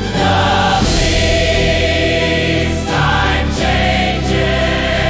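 Slow music with a choir singing sustained wordless chords.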